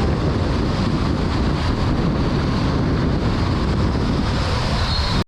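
Wind buffeting the microphone: a loud, steady rushing noise with a heavy, fluctuating low rumble.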